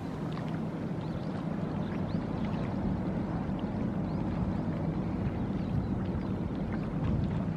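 Small coastal tanker's diesel engine running with a steady low hum, over the splashing of water pouring from an outlet in the tanker's side into the sea. Faint short high chirps come and go above it.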